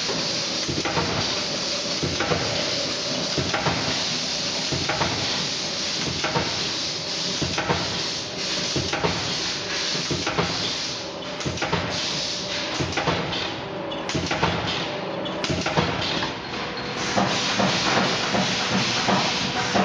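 Industrial fan-guard wire spot welding machine and its wire feeder running: a steady hiss with frequent sharp metallic knocks and clacks at irregular intervals.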